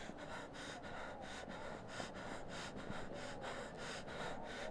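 A person's quick, ragged gasping breaths, short rushes of air repeating several times a second, the breathing of someone winded and hurt after a beating.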